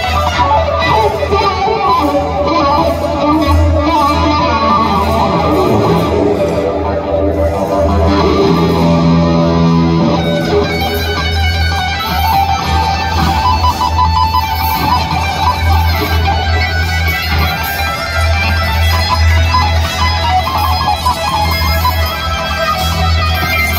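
Live rock music: an electric guitar playing lead, with shifting, held melodic notes and tapping, over bass guitar and drums, with a heavy low end.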